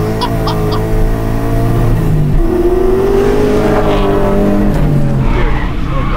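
V8-swapped Nissan 350Z accelerating hard on a 0-to-60 run, engine revs climbing through the gears with upshifts about two seconds in and again near five seconds.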